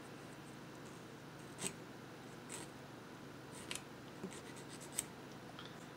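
A few short, faint scrapes of a small hand file on a plastic model-kit engine part, filing down a mould seam line.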